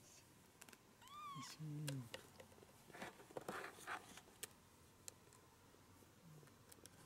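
A four-week-old kitten gives one short mew about a second in, its pitch rising and then falling. Then come rustles and light knocks as the kitten is handled into a plastic tub on a kitchen scale.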